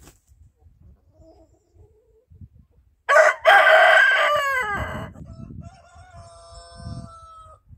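Rooster crowing once, loud, starting about three seconds in, the call falling in pitch at its end. A fainter, steadier crow from a more distant rooster follows near the end.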